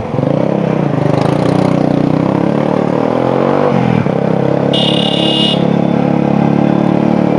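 150 cc motorcycle engine accelerating under a rider, its pitch climbing steadily through the revs, dropping sharply at a gear change about four seconds in, then running on strongly. A brief high-pitched tone sounds about five seconds in.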